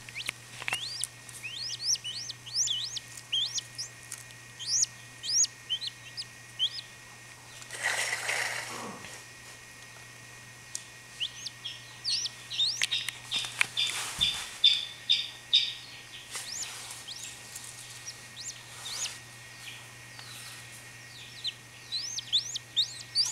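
Newly hatched chachalaca chick peeping: bouts of short, high, rising peeps, several a second, broken by short pauses.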